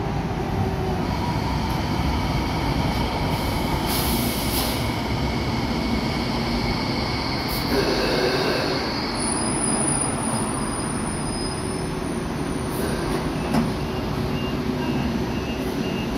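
Hong Kong Light Rail tram pulling into the platform and stopping, with steady rumble and wheel squeal as high whines that fade out about two-thirds of the way in. A short run of evenly spaced beeps follows near the end.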